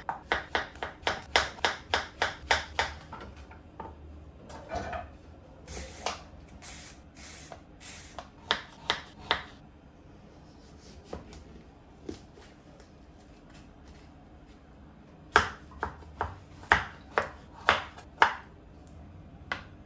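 Kitchen knife slicing zucchini and pumpkin on a plastic cutting board: three runs of sharp knocks at about three to four a second, the first at the start, one in the middle and one near the end, with quiet gaps between.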